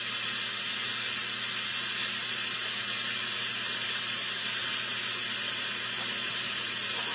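Electric pressure cooker's steam release valve hissing steadily during a quick release, venting the built-up pressure.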